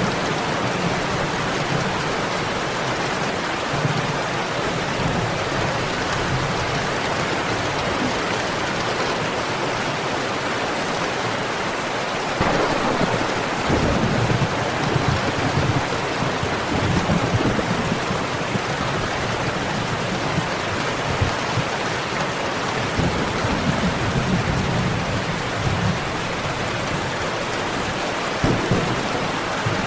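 Steady rain with low rumbles of thunder rolling in now and then. The strongest rumbling comes a little before the middle, and there is another brief swell near the end.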